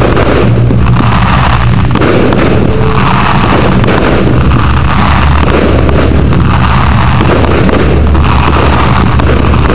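Aerial fireworks bursting in quick succession: a dense, continuous run of bangs, loud enough that the recording sits near full scale throughout.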